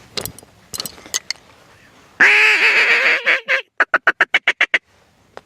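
Duck-like quacking: a few clicks, then one loud, long drawn-out call with a falling pitch, followed by a quick run of about ten short, evenly spaced notes.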